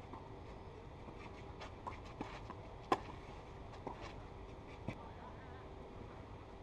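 Tennis rally on a clay court: a few sharp knocks of racket strings on ball and the ball bouncing, the loudest about three seconds in, over a faint steady hum.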